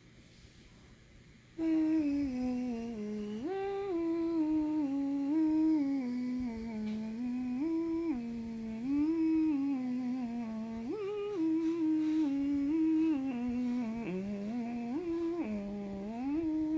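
A person humming a tune. The notes step up and down between held pitches, starting suddenly about a second and a half in and carrying on without a break.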